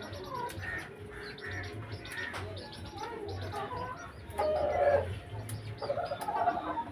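Chickens clucking on and off, loudest about four and a half seconds in, with small birds chirping over them.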